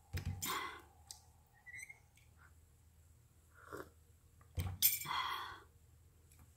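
Two loud slurping sips from a mug, the first just after the start and the second about four and a half seconds later, each starting with a short low knock.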